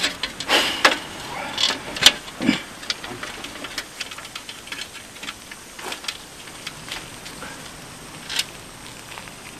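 Scattered clicks and light knocks of hand work on a bicycle's metal parts, with short rustles. The loudest come in the first couple of seconds, then it settles to sparse small clicks.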